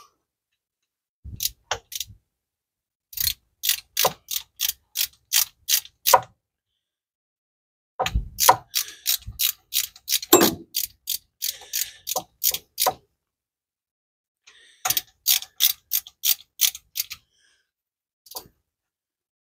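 Socket ratchet clicking in short runs, about three clicks a second, as a bolt on the engine's thermostat housing is tightened, with one heavier knock partway through.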